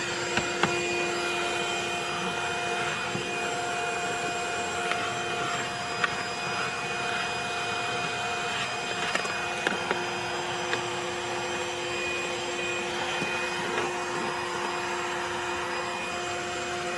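HOTOR 12-volt cigarette-lighter handheld car vacuum running steadily with its long crevice tool fitted, a constant motor hum with a few short clicks scattered through it.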